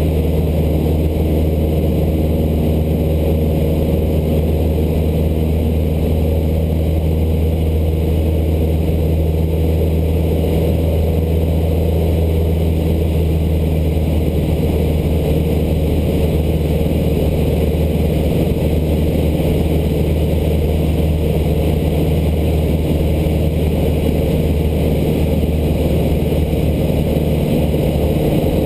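Cessna 152's four-cylinder Lycoming O-235 engine and propeller droning steadily in flight, heard from inside the cabin.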